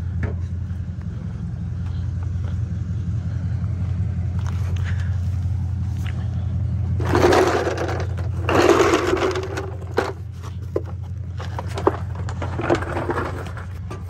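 Steady low rumble of an idling vehicle engine. Rustling and scraping about seven and about nine seconds in, from handling and moving down under the car, with a few sharp clicks later.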